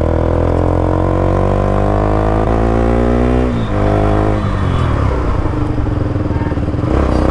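KTM RC 200's single-cylinder engine pulling hard under acceleration, its pitch climbing steadily, then dropping sharply at an upshift about three and a half seconds in. It climbs again briefly before the throttle eases, and it settles to a steadier, lower note near the end. After its service the rider feels the engine is still misfiring slightly.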